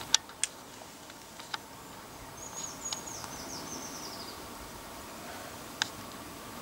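A small songbird sings one high phrase of quick notes that step downward in pitch over about two seconds, over faint outdoor hiss. Sharp clicks sound twice in the first half second, once more about a second later and once near the end.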